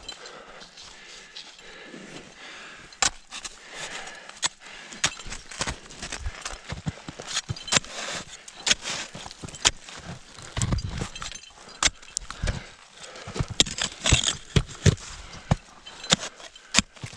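Ice axes and crampons biting into snow and scraping on rock during a winter climb: irregular sharp clicks, knocks and metallic clinks, with a few heavier thuds around ten to thirteen seconds in.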